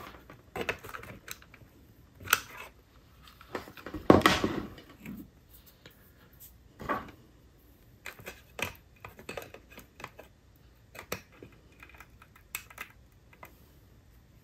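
Irregular light clicks and taps of a hot glue gun and small plastic parts being handled while gluing an LED into a model locomotive shell, with one louder knock about four seconds in.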